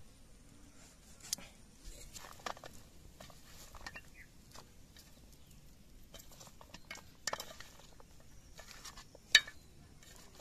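Chopped goat leg pieces handled on a stainless steel plate: light, scattered clinks and taps of bone and meat against the metal, the sharpest one near the end.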